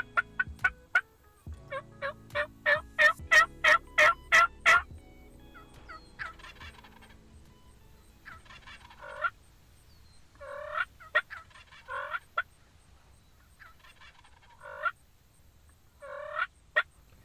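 Wild turkeys calling: a loud run of yelps, about four a second, over the first five seconds, then gobbles ringing out again and again, some close together, through the rest.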